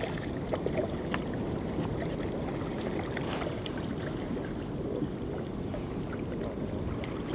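Steady noise of harbour water lapping with wind on the microphone, and a few faint knocks.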